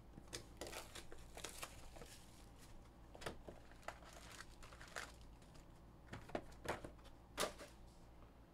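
A cardboard Panini Chronicles football hobby box being opened and its foil-wrapped card packs pulled out: faint crinkling with scattered sharp clicks, a few of them louder in the second half.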